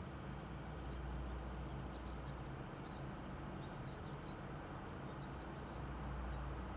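Steady low rumble of ambient noise, with a few faint, short bird chirps scattered through it.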